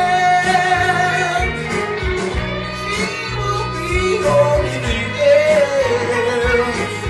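A man singing long held notes without clear words over a strummed acoustic guitar.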